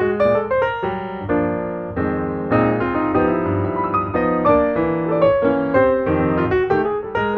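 Background piano music: a steady run of notes, several a second, over lower held chords.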